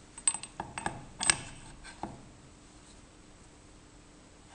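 Light metallic clicks and clinks of small steel tailstock parts being handled and fitted into the lathe's tailstock. There are about six in the first two seconds, the sharpest about a second in.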